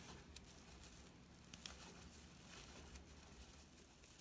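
Near silence, with a few faint ticks and rustles of a metal crochet hook working paper yarn.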